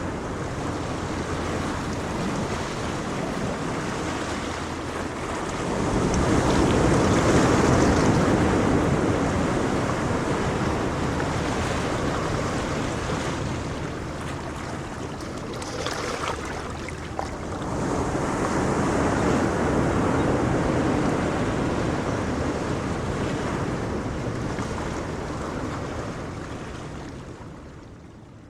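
Ocean waves breaking and washing on the shore, with two larger swells about 6 and 18 seconds in, and wind. The sound fades out near the end.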